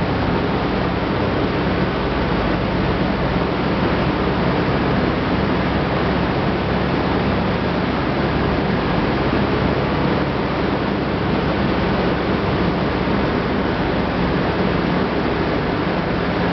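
Steady machinery noise of a corn wet-milling line running: a continuous rushing of corn slurry and water pouring over inclined screens, over a low steady hum of motors and pumps.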